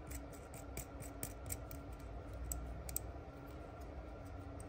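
Faint small clicks and ticks of a nut being threaded by hand onto the threaded body of an RCA jack, a few irregular ticks a second.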